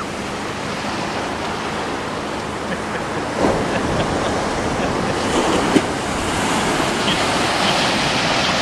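Ocean surf washing up on the beach: a steady rushing wash of waves that grows slowly louder toward the end.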